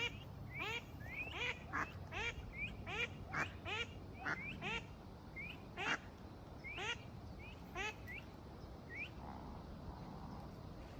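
Ducks calling: a rapid series of short, rising calls, two or three a second, thinning out in the last few seconds.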